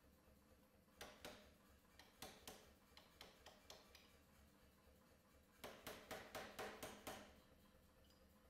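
Anyang pneumatic power hammer's ram striking a hand-held top tool on a hot steel knife blank: a few light single blows, then a quick run of about nine blows near the end.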